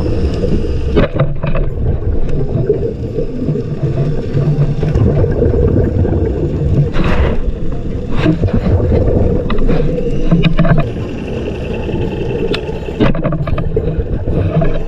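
Underwater ambience heard through a camera underwater: a steady low, muffled rumble of water movement, with scattered sharp clicks and a louder knock about seven seconds in.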